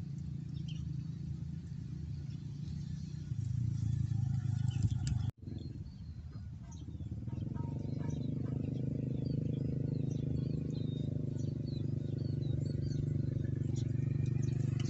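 Small birds chirping over a steady low motor hum. The sound drops out briefly a little over five seconds in, then the hum comes back somewhat louder.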